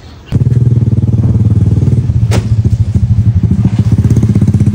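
A small engine starts up suddenly just after the opening and runs at a steady, fast, even putter. There is one brief sharp sound about two seconds in.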